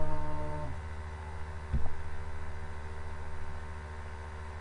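Steady low electrical hum in the recording. At the start a held, wordless vocal 'mmm' fades out, and a single click sounds a little under two seconds in.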